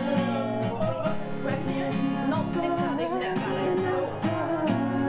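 Steel-string acoustic guitar strummed in chords with a steady rhythm.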